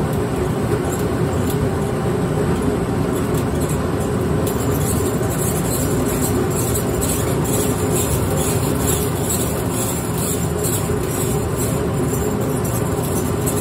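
Grain mill running steadily, crushing malted barley that feeds down from its hopper: a continuous mechanical rumble.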